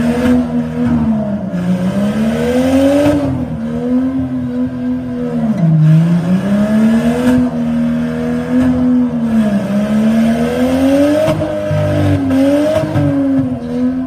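Demolition derby mini truck's engine revving hard, rising and falling over and over as the locked-together trucks push against each other.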